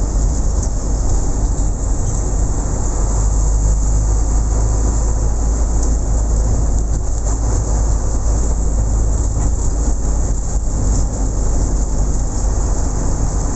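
Steady loud rumbling and rushing noise of a moving vehicle, unbroken throughout.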